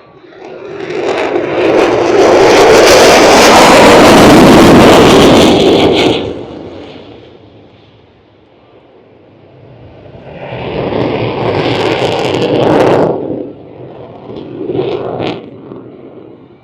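Aircraft passing close by with a loud rushing roar that swells and then drops away quickly, followed by a second, shorter pass and two brief bursts near the end.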